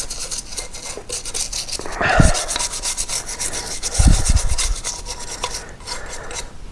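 Rapid scrubbing strokes on the motorcycle's chain cover, cleaning off dried, sticky chain-lube build-up and grit, with a couple of low knocks about two and four seconds in.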